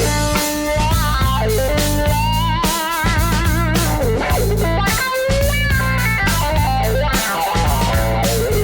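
MCS70 analogue synthesizer playing a lead melody with vibrato, in a sound close to an electric guitar, over held bass notes and a steady beat.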